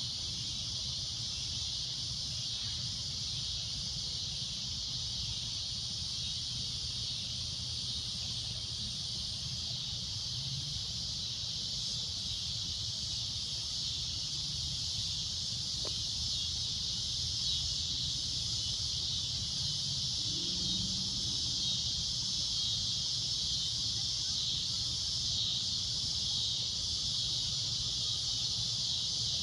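Cicadas droning: a loud, shrill buzz held steady without a break, over a low rumble.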